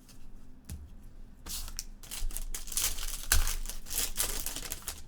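Packaging on a trading-card box being torn open and crinkled: a dense tearing, crackling stretch lasting about three seconds, after a soft thump under a second in.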